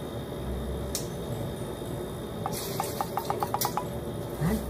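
Tea concentrate glugging out of a small bottle into a tumbler: a quick run of about ten gurgling pops, roughly eight a second, after a single click about a second in.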